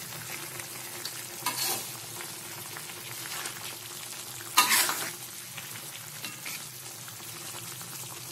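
Chicken pieces turned with a spatula in a metal pot, with a steady low sizzle as they braise in their spiced juices partway through cooking. The spatula scrapes against the pot twice, once about one and a half seconds in and more loudly a little past the middle.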